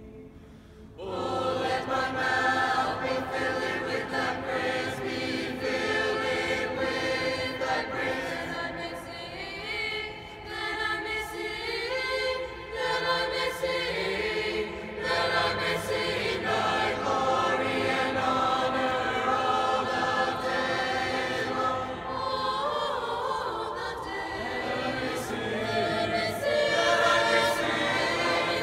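Mixed-voice chamber choir singing in several parts, in the long echo of a large stone cathedral. A brief lull at the start, with the choir coming back in about a second in.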